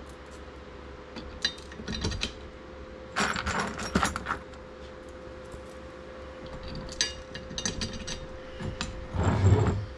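Small metal hardware, bolts and washers, clinking and rattling as it is handled and fitted, in several short bursts of clicks, over a faint steady hum.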